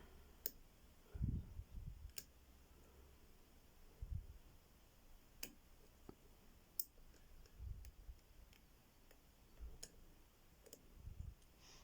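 Faint, scattered clicks of a lock pick and tension wrench working the pins of an ABUS 85/60 padlock, a sharp click every second or two, with a few soft low thumps of handling. The pins are spool pins, by the picker's own belief, giving counter rotation as they set.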